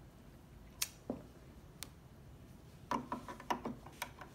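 Small sharp clicks and taps of metal parts in the front bobbin compartment of a Singer C5200 sewing machine as the bobbin case is fitted back into the hook: a few single clicks in the first two seconds, then a quicker run of clicks, some with a brief metallic ring, about three seconds in.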